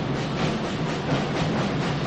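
Steady crowd noise of a packed basketball arena during live play.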